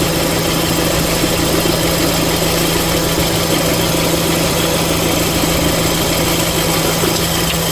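Renault Fluence M4R 2.0 four-cylinder engine idling under air-conditioning load, running steadily with the noise from the accessory drive that is traced to a faulty belt tensioner: the noise stops when the tensioner is pressed down.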